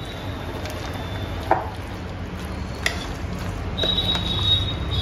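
A metal spoon stirring mayonnaise-and-cream-coated chopped vegetables in a glass bowl: soft squelching with a few light clinks of the spoon against the glass. A steady low hum runs underneath.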